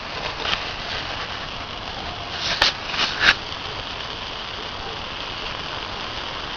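A bonfire burning a mattress, with a steady hiss and crackle and two sharp pops near the middle.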